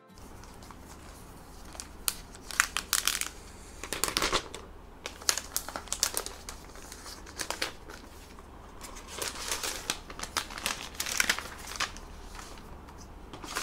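A white protective wrap crinkling as it is pulled off a MacBook Air, in irregular bursts of rustling and crinkling.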